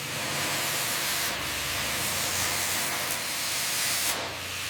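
Steady hiss of compressed air spraying from an air tool, with a low hum underneath. It eases slightly about four seconds in.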